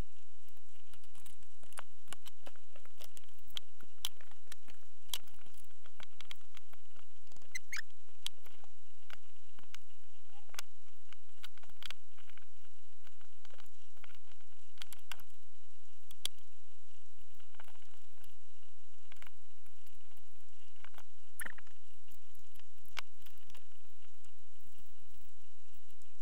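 Irregular crackles and short clicks scattered throughout, over a steady low hum.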